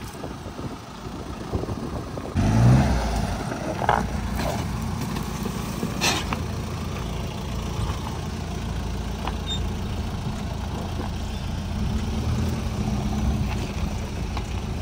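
SUV engine running steadily at low revs, with one loud low thump or surge about two and a half seconds in and a few sharp clicks soon after.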